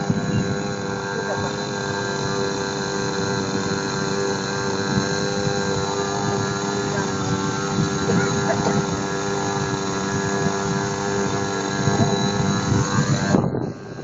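RC model plane's motor running at a steady pitch, then dropping out sharply near the end.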